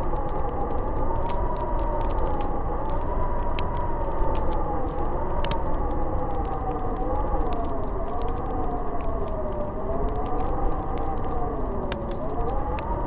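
Howling snowstorm wind: a wavering whistle that slowly rises and falls in pitch over a steady rush of wind, with scattered sharp crackles.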